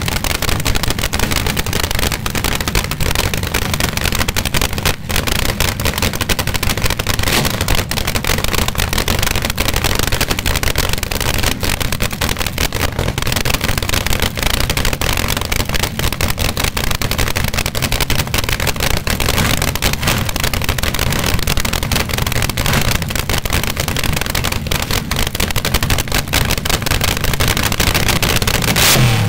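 Several supercharged front-engine dragster engines running on nitromethane, idling together with a loud, steady, rapid crackling cackle.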